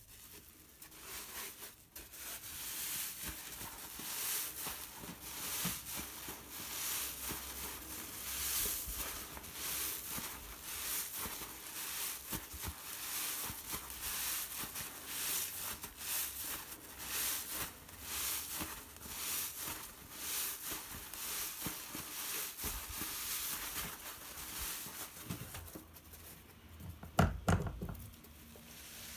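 Long egg-crate foam sponge being rubbed and squeezed by hand, a crinkly rustling in repeated strokes. A louder thump comes near the end.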